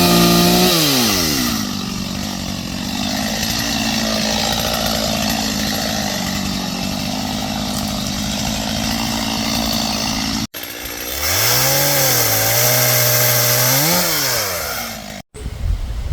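Gas chainsaw revving high, dropping back to a steady idle about a second in. It breaks off abruptly, then revs up again for about three seconds before falling back and breaking off once more.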